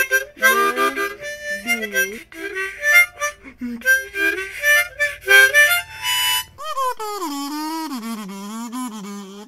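Harmonica playing a quick run of short notes and chords. About two-thirds of the way through, this gives way to one long wavering note that bends up and down.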